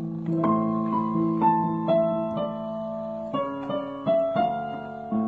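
An electronic keyboard plays a slow melody over held chords. The notes are sustained and organ-like, with a new note or chord coming in about every half second.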